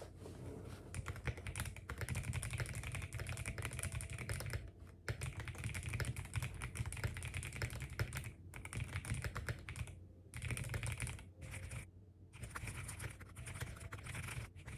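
Typing on a computer keyboard: quick runs of keystrokes broken by a few short pauses.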